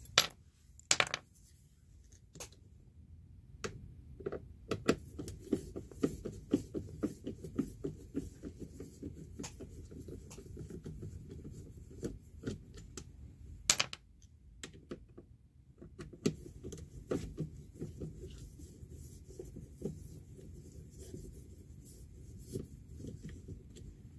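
Screwdriver turning out screws from a Sanicompact macerator toilet's plastic housing: a run of small clicks and scrapes, several a second at times, with a few sharp knocks as tool and unit are handled.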